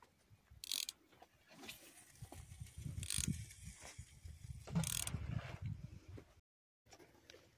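Close handling noise: a small mechanism clicking and ratcheting, with three short rustling hisses and low knocks and rumbles. It cuts off abruptly near the end.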